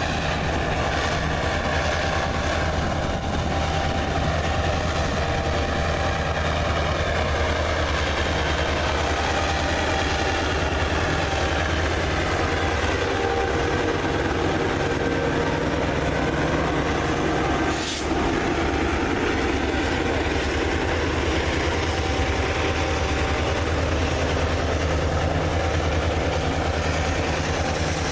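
EMD diesel-electric locomotives of a CSX freight train running steadily under power, a deep continuous engine drone. A single sharp click sounds about two-thirds of the way through.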